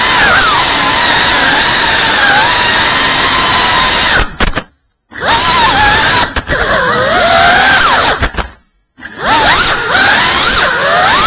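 Tiny whoop FPV drone's motors and propellers whining loud and close, the pitch rising and falling as the throttle changes. The sound cuts to silence twice for about half a second, near the middle and again a few seconds later.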